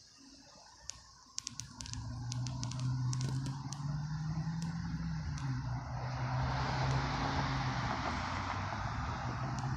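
A large engine approaching: a steady low drone that builds up about a second and a half in and keeps growing louder, joined by a rising rushing noise from about six seconds in. A quick run of sharp ticks comes over the start of the drone.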